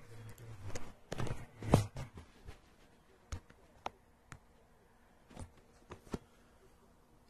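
Handling noise and thumps of a hand-held camera being moved, loudest about two seconds in, then a handful of faint, sharp clicks and taps.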